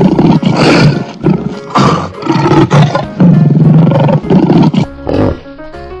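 Recorded lion roaring: about four loud, rough roars in the first five seconds, over light background music.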